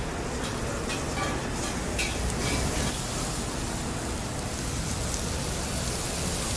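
Steady hissing sizzle of beef cooking on a hot steakhouse grill, with a few faint clicks about one to two seconds in.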